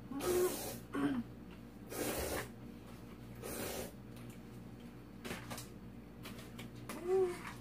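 Spicy jjolmyeon noodles being slurped off chopsticks: three slurps about a second and a half apart, each about half a second long.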